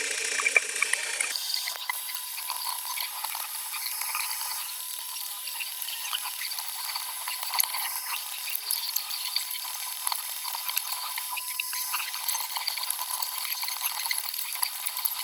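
A machine running with a steady high whine, under a constant crackle of small ticks.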